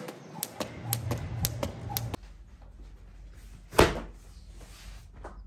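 A skipping rope slaps a tiled floor about twice a second, then stops. A little before four seconds in, a foam exercise mat is flung down onto a laminate floor with one loud slap.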